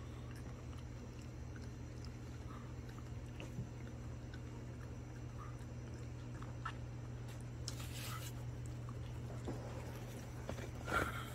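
A dog chewing pieces of desalted gompi (sea trumpet kelp): sparse soft chewing clicks, with a short louder noise about two-thirds of the way in and the loudest one near the end, over a steady low hum.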